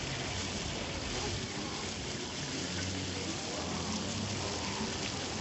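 Fish frying in oil on a flat griddle, a steady sizzling hiss, with faint voices behind.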